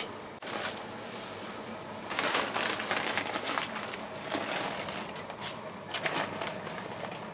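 Restaurant kitchen work: a burst of hissing about two seconds in that carries on more faintly, with scattered clicks and clatter.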